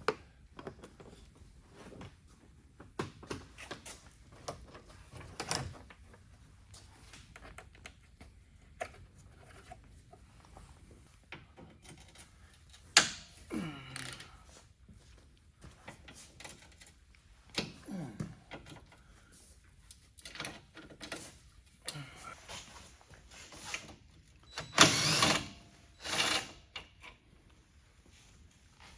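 Scattered clicks, knocks and scrapes of a Phillips screwdriver working the quarter-turn screws of a car's plastic underbody shield. A louder rasping scrape comes near the end.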